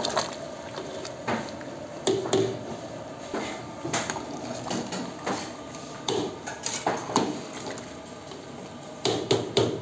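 A metal ladle knocks and scrapes against a large aluminium pot while boiling tomatoes are stirred in it. The clanks come irregularly, every half second to second and a half, with a quick run of them near the end.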